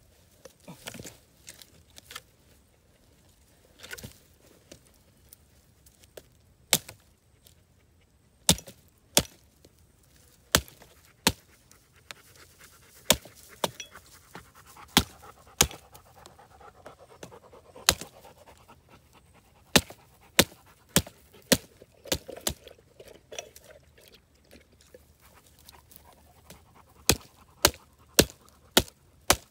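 Hatchet chopping small dry sticks into kindling: about twenty sharp, irregular strikes of the blade into wood, with a pause of a few seconds near the end and then a quick run of strikes. Panting can be heard between the strikes.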